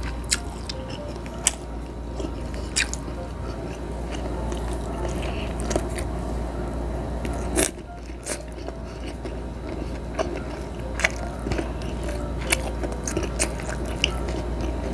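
Close-miked chewing and biting of grilled squid, with sharp wet mouth clicks and smacks scattered throughout over a steady low hum.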